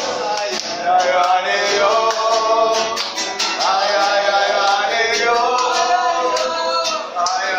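Men singing together to strummed acoustic guitars.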